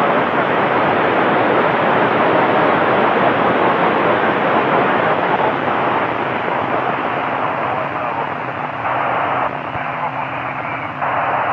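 FM radio static from the AO-92 amateur satellite's 145 MHz downlink on a Kenwood TS-790E receiver: steady hiss with no clear voice. The hiss grows denser in a few patches near the end.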